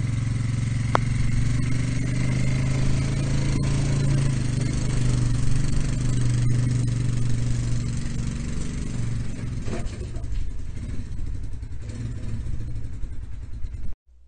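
4x4 ATV quad engine running steadily as it drives, towing a log trailer loaded with firewood, with a few light knocks. The sound cuts off suddenly near the end.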